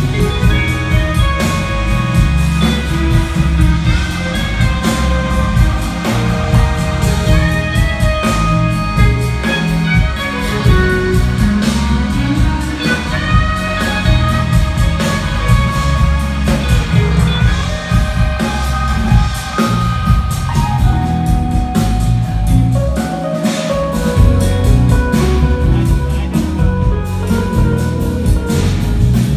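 Jazz-fusion band playing live and loud: drum kit, electric guitars and keyboards together with a steady beat and melodic lines.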